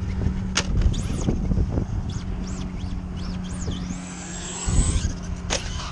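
Traxxas Stampede 2WD RC truck's brushless motor whining in short revs, the pitch rising and falling again and again, with a louder thump just before the end; the driver believes the slipper clutch has been stripped. A steady low hum runs underneath.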